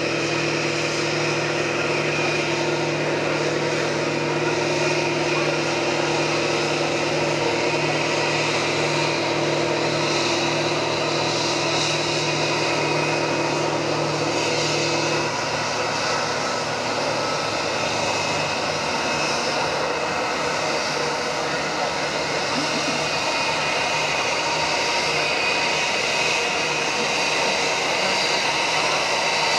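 Airbus A320 jet engines running at taxi power, a steady rushing noise with a high whine, mixed with the spray of fire-truck water cannons. A low steady hum drops out about halfway through.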